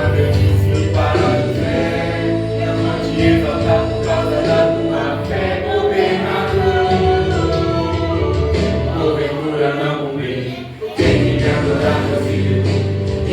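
Gospel song with sung vocals, several voices in harmony over instrumental accompaniment. The music drops briefly about eleven seconds in, then comes back in full.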